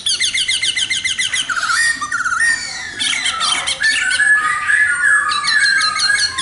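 Khướu mun laughingthrush singing a fast, varied song: rapid runs of repeated whistled notes and rising and falling phrases, with a short lull partway through.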